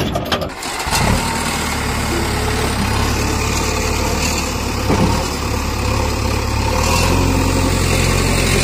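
Diesel engine of a JCB 3DX backhoe loader running steadily under load as its front loader bucket lifts a heap of soil, with a slight rise in engine note near the end.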